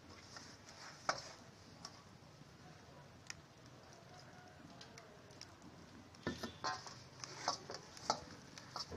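Hands mixing and kneading gram flour (besan) dough in a stainless steel bowl: faint squishing with a few sharp clicks, getting busier about six seconds in.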